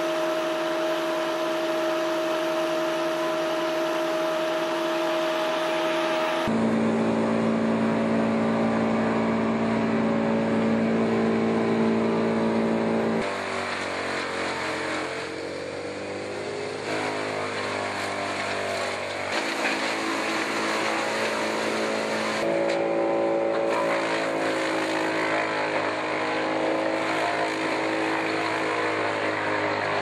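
Diesel engines of a Boxer 322D mini skid steer and a tow-behind drum wood chipper running as brush is fed into the chipper. The steady engine tones shift abruptly in pitch several times, and about halfway through they sag and recover.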